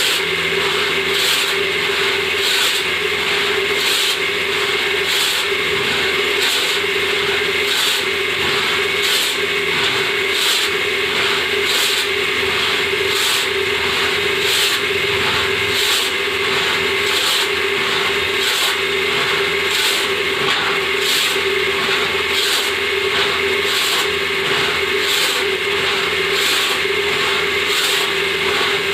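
Hand saw cutting through wood in a steady back-and-forth rhythm, about three rasping strokes every two seconds, over a steady low hum.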